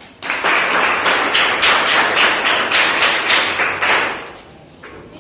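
An audience clapping, loud and close, starting just after the beginning and dying away after about four seconds.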